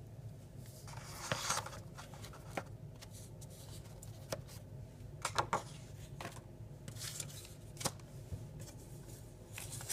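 Cigars and their box being handled: scattered light clicks, taps and rustles at irregular moments, over a steady low hum.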